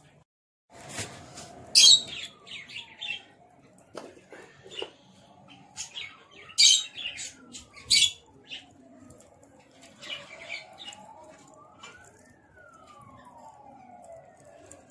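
Outdoor ambience of birds chirping in short bursts, the loudest about 2, 6.5 and 8 seconds in, over a slow rising and falling wail in the background.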